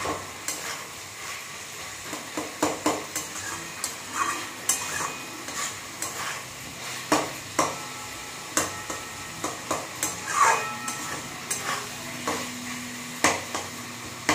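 Wooden spatula stirring and scraping potatoes and peas around a metal kadai, giving irregular knocks and scrapes against the pan over a steady frying sizzle.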